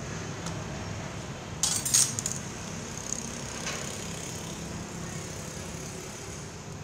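A ruler set down on a desk: a brief rattling clatter about a second and a half in, then a single click a little later, over a steady background noise.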